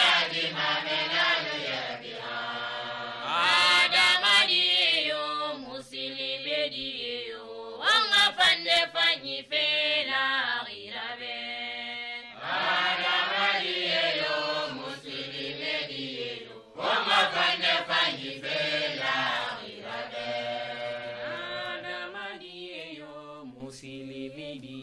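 Islamic devotional chant sung in the Soussou language: melismatic vocal phrases of a few seconds each, with long, wavering held notes.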